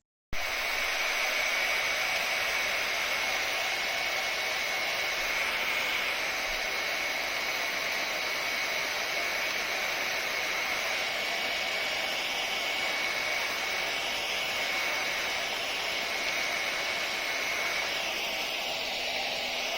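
A 1400 W brushless-motor hair dryer switching on abruptly and running steadily: a rush of blown air with a high, steady whine.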